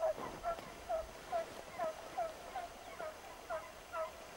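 Distant drever hounds baying while they follow a roe deer's scent trail: a steady run of short barks, about two to three a second, each dropping a little in pitch.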